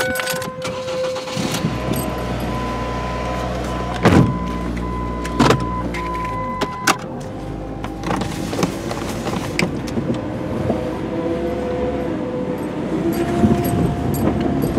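Car engine running as the car drives along, heard from inside the cabin, with three sharp knocks or clunks in the first half and a steady high tone through the first half.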